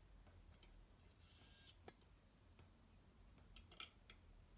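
Near silence: faint room tone with a low hum, a brief soft hiss a little over a second in, and a few faint clicks.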